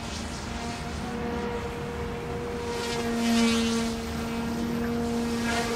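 OMPHOBBY M2 micro electric RC helicopter in flight: the hum of its direct-drive main and tail rotors holds a steady pitch, swelling louder about three seconds in as it comes closer.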